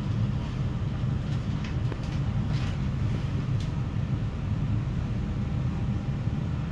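Interior of a CFL regional passenger train pulling out of a station at low speed: a steady low running rumble through the carriage, with a few faint brief higher-pitched sounds in the first half.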